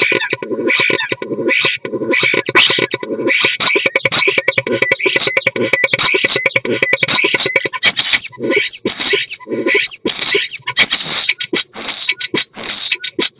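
Common starling singing its courtship song at close range inside a wooden nest box: a fast, dense run of clicks and rattles, then from about eight seconds in, separate phrases with falling whistles.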